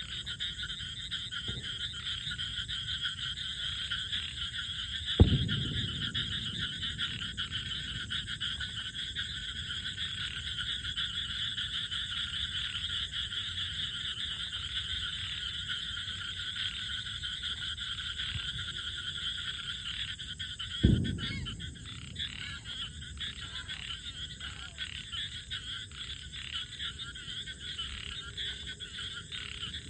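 A dense, continuous chorus of frogs calling. Two dull thumps stand out, one about five seconds in and one about twenty-one seconds in.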